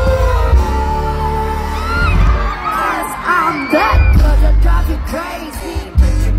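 Pop music with vocals and a heavy bass beat, played loud over a concert sound system during a soundcheck.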